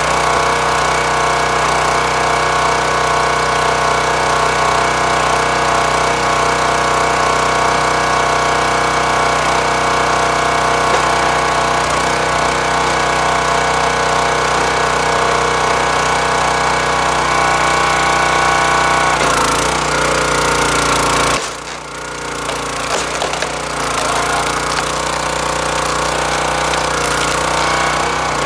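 Small engine of a hydraulic log splitter running steadily. Near twenty seconds in the sound changes, then dips sharply and builds back up over the next few seconds.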